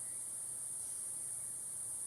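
Steady high-pitched hiss, with no other event.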